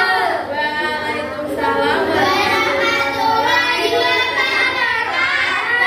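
Several young schoolchildren singing together.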